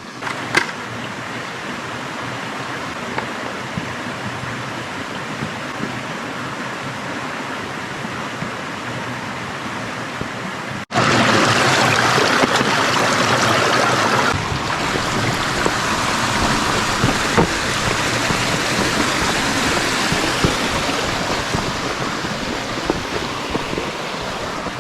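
Brook water rushing steadily over rock. It breaks off for an instant about eleven seconds in, then comes back louder, and eases slightly a few seconds later.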